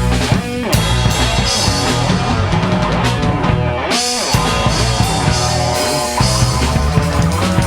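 A rock band playing loud and live, with drum kit, electric guitar and bass, in an instrumental passage with no singing. The bass and drums drop out briefly around four seconds in, then the full band comes back in.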